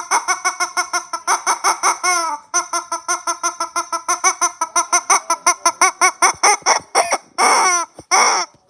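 Chicken clucking in a fast, even run of short calls, about six or seven a second, then two longer squawks near the end.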